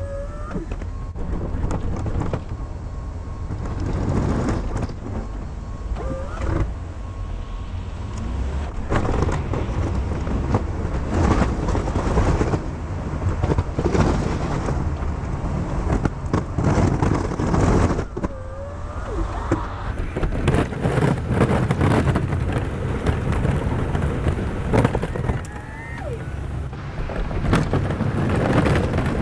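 Pickup truck running with a steady low rumble while its snow plow pushes snow, with frequent clunks and scrapes throughout.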